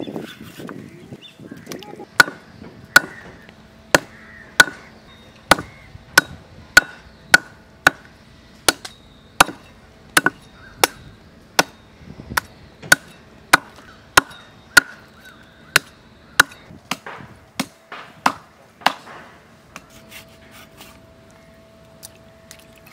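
Large knife chopping mutton and rib bones on a wooden board: a steady run of sharp chops, about one and a half a second, that stops a few seconds before the end.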